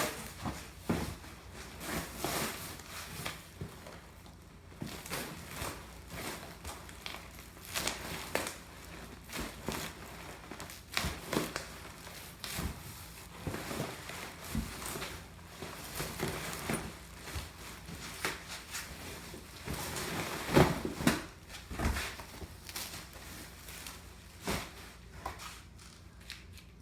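Cardboard box and packing material being handled and pulled apart: irregular crinkling and rustling with scattered knocks and thumps, the loudest about twenty seconds in.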